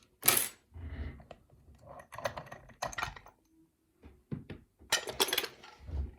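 Metal challenge lock and lock-picking tools being handled right after the lock has been picked open: a series of sharp clicks and knocks, the loudest about a third of a second in.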